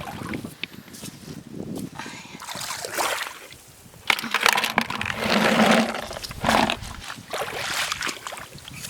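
Irregular splashing and sloshing of shallow water and wet sand as shellfish are dug out and handled on a tidal flat, loudest about four to six seconds in.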